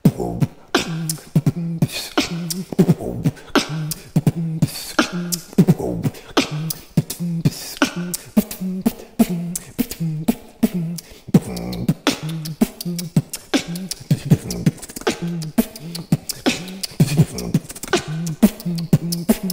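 Beatboxing: a continuous mouth-made beat of sharp clicks and pops, with short low hummed notes recurring underneath as a bass line.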